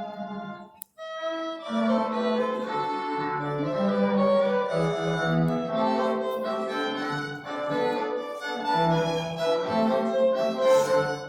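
A string quartet playing, with violin and cello lines in sustained, overlapping notes. The sound breaks off briefly about a second in, then the playing resumes.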